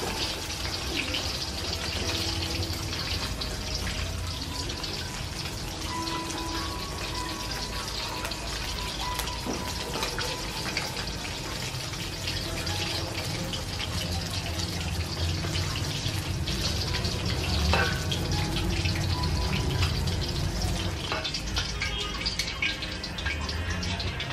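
Battered chicken pieces frying in hot oil in a steel wok: steady sizzling and crackling, with a few light knocks of the tongs.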